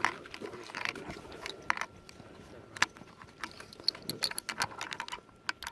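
Irregular metallic clicks and rattles of a Ross rifle being loaded by hand, cartridges and action parts knocking together, with a sharp click near the start and another about three seconds in.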